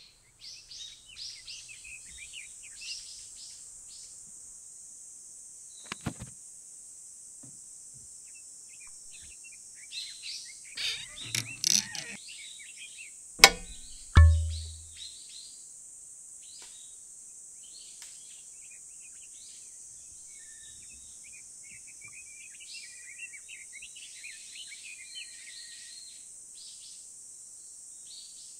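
Small birds chirping on and off over a steady high hiss. Some rustling and handling noises come a little before the middle, then a sharp click and a short low thump about halfway through as the floor lamp is handled.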